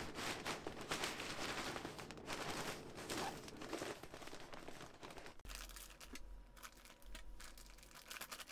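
Plastic bag crinkling and rustling in the hands as its neck is gathered, twisted and sealed shut, with dense crackling that drops to quieter rustles about five seconds in.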